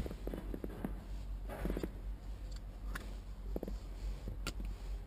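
Scattered small clicks and short rustles of hands handling small tools and wiring, over a steady low hum.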